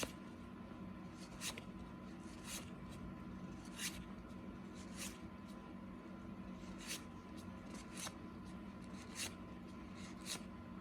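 Faint flicks of trading cards being thumbed through one at a time, with a soft snap of card stock about once a second, over a low steady hum.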